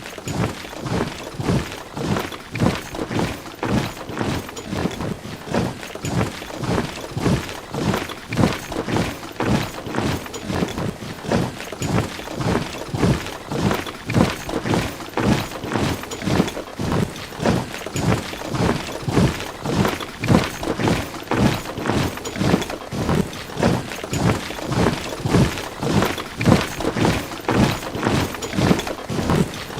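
Footsteps of a large body of soldiers marching together: a steady, even rhythm of heavy treads.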